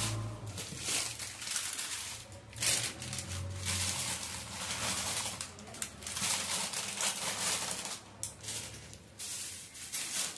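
Plastic grocery packets crinkling and rustling in irregular bursts as they are handled and packed into a steel storage tin.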